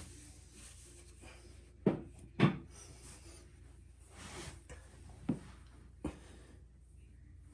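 Handling noise from working on a washing machine's drain filter and pipe: rubbing and scraping, with four short knocks, the loudest two about two seconds in.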